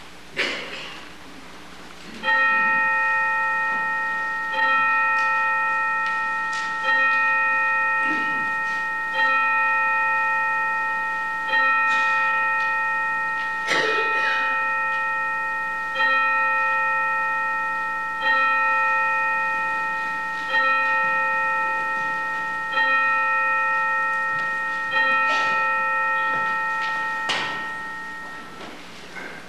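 A single bell tolled slowly, eleven strokes at the same pitch about every two and a quarter seconds. Each stroke rings on and fades into the next, and the last dies away near the end.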